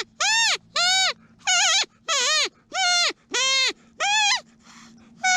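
Predator call sounding a loud, evenly repeated distress cry for coyotes: about seven short, arching wails, each rising then falling in pitch, with a short pause near the end before the next cry starts.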